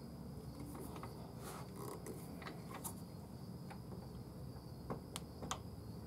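Faint, irregular scratches and sharp ticks of a small hand tool worked against the rim of a wooden bowl blank held still on the lathe, a few of them stronger about five seconds in, over a steady low hum and a faint steady high tone.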